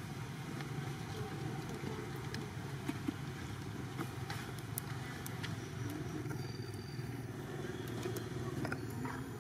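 Steady low rumble like a running motor vehicle engine, with scattered small clicks and crackles.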